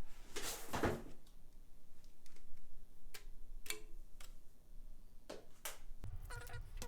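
Scattered light clicks and taps from handling a freshly unboxed graphics card and its packaging, a few at a time with gaps between them; a low hum comes in near the end.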